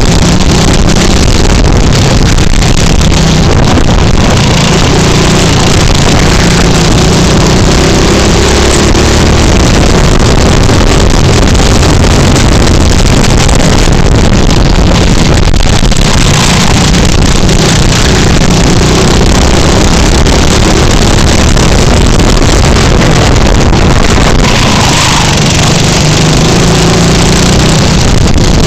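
Go-kart engine running at racing speed, loud and close on the onboard microphone, its revs rising and falling through the corners.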